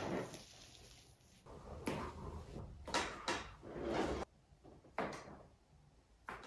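A series of sharp cracks and knocks, about half a dozen spread over several seconds, from a patient's spine and joints popping under a chiropractic adjustment.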